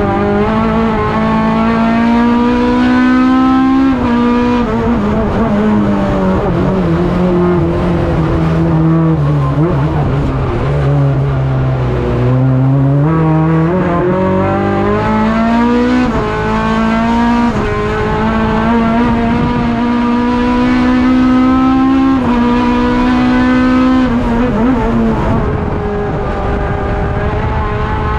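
Honda Integra (RSX) race car's four-cylinder engine under hard acceleration, heard from inside the cockpit: the pitch climbs in each gear and drops sharply at each upshift, several times. In the middle it falls steadily for several seconds as the car slows, then climbs again.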